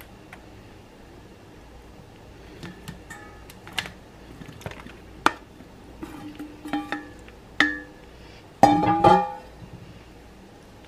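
Scattered clinks and knocks of a glass bowl and serving spoon against a foil pan as cubes of cheese are tipped out, some strikes ringing briefly. The loudest is a ringing double clink about nine seconds in.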